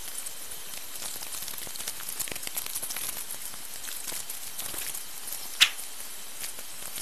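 Steady microphone hiss with faint scattered crackles, and one short sharp click about five and a half seconds in.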